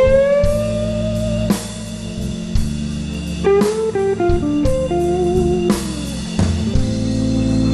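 Live blues band playing an instrumental fill between vocal lines: a lead electric guitar bends a note at the start and plays a short run of notes about three and a half seconds in, over bass and drums.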